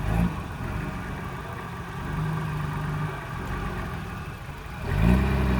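Off-road race vehicle engine running, revving up about five seconds in.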